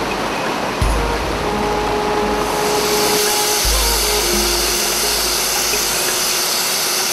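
Rushing river rapids, then after about two and a half seconds a steady turbine whine and hiss from a large Mi-8-type transport helicopter.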